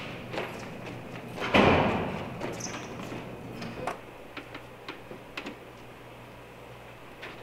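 A glass door being opened, the loudest sound about one and a half seconds in, followed by scattered light footsteps and clicks as someone walks through.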